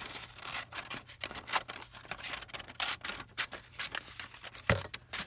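Sheets of paper being handled and shuffled into place, with irregular rustling and crinkling and one sharp tap about four and a half seconds in.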